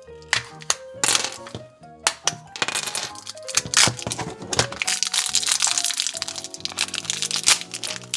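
Background music with the crackling and crinkling of plastic wrapping being torn open on a toy surprise package, getting busier and denser from about two seconds in.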